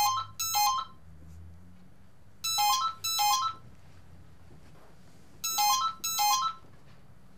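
Telephone ringing with an electronic ringtone: three double rings, about three seconds apart, each ring a quick run of stepping beeps.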